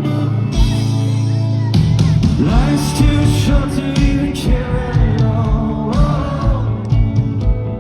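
Rock band playing live with singing. A held low chord gives way about two seconds in to the full band, with drums keeping a steady kick beat.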